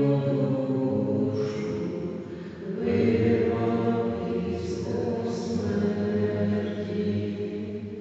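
Slow liturgical chant sung by several voices, with long held notes and a brief break for breath about two and a half seconds in.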